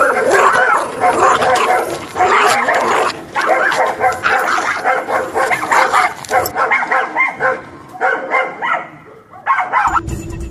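Dogs barking and yelping, dense and loud, breaking off near the end.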